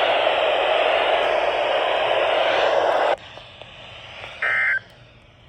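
NOAA Weather Radio broadcast: a loud rushing hiss of radio static that cuts off sharply about three seconds in. Near the end comes one short two-tone digital buzz, the start of the SAME end-of-message data bursts that close the weekly test.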